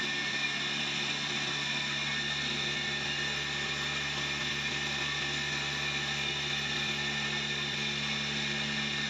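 Steady hum and whir of running flour-mill (atta chakki) machinery: an electric motor and belt drive turning at constant speed, with a fine mechanical rattle over it.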